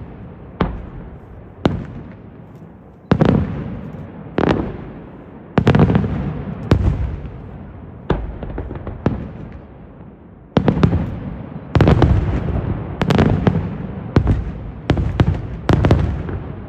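Aerial firework shells bursting overhead: a string of about fifteen loud bangs, roughly one a second and bunching closer together near the end, each followed by a rolling echo that dies away.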